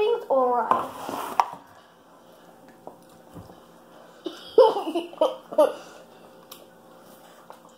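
A girl's voice making short wordless sounds in two clusters, early on and again about four and a half seconds in, with a sharp click about a second and a half in.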